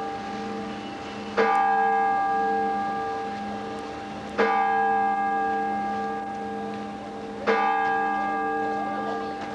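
A single church bell tolling slowly, struck three times about three seconds apart. Each stroke rings on at the same pitch and fades, with a pulsing hum underneath.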